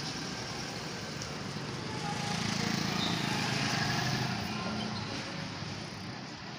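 Street traffic, with a motorcycle engine passing close by: it swells from about two seconds in and eases off after about four and a half seconds.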